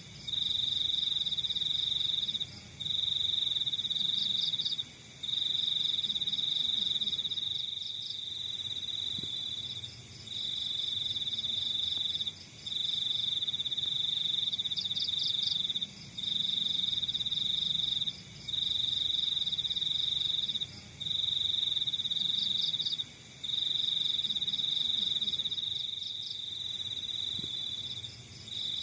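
Crickets trilling: one high, steady trill that runs in bouts of about two seconds, broken by short pauses, with a fainter pulsed chirping above it a few times.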